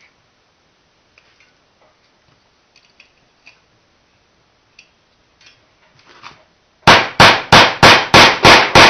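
Hammer driving a steel nail into a wooden block: a quick run of about seven sharp strikes, roughly three a second, starting near the end. Before it, faint small clicks as wire is wrapped around the nail and the nail is set in place.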